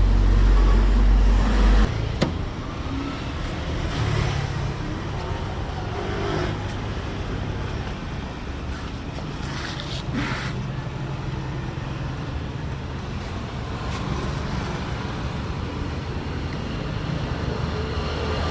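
Motor vehicle noise: a loud low engine rumble that cuts off about two seconds in, a sharp click just after, then steadier, quieter background noise with a few short hisses.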